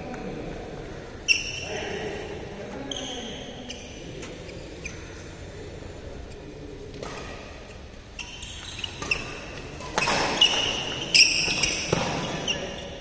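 A badminton rally in a large, echoing hall: sharp racket strikes on the shuttlecock, with several loud hits near the end, and short high squeaks of shoes on the court mat between them.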